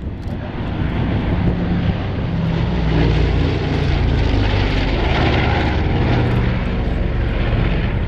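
A Lockheed Super Constellation's four Wright R-3350 eighteen-cylinder radial piston engines and propellers in flight, a loud, deep drone that grows over the first three seconds and then holds steady.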